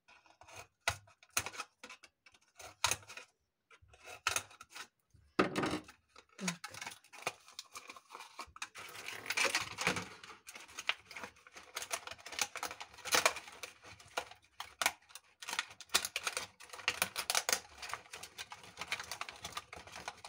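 Cut pieces of plastic bottle crackling and clicking as they are handled and worked: scattered sharp clicks at first, then denser continuous crackling from about eight seconds in.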